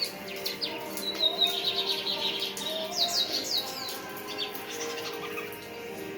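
Female red-cowled cardinal singing a run of quick chirps and sweeping notes, with a lined seedeater singing in the background.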